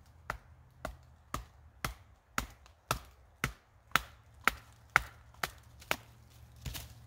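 A Spyderco Bushcraft knife being batoned through a branch: a wooden stick knocks sharply on the knife's spine about a dozen times, roughly twice a second, driving the blade into the wood.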